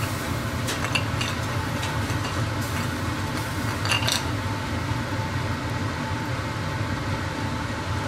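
Freshly grilled oysters sizzling in their shells over a steady low hum, with a few light clicks of chopsticks against a plate about one second in and again near four seconds in.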